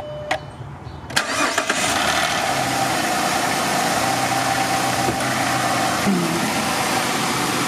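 2010 Jeep Liberty's 3.7-litre V6 cranking and starting about a second in, then idling steadily. This is the first start after a water pump replacement, with the cooling system freshly refilled and not yet topped up or bled of air.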